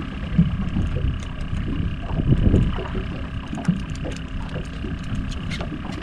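Wind buffeting the microphone on a small fishing boat on choppy water: a steady low rumble with irregular gusts, and a few faint clicks near the end.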